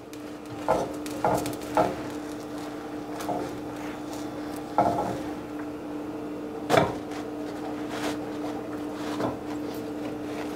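A spatula and frying pan knock and scrape as a thin egg crepe is lifted out of the pan onto paper towels. There are a handful of light knocks, the loudest about seven seconds in, over a steady low hum.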